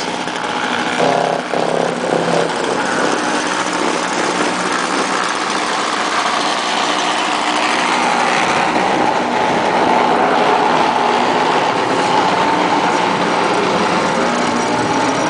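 Snowblower's small engine running steadily, with a whine that grows stronger about halfway through.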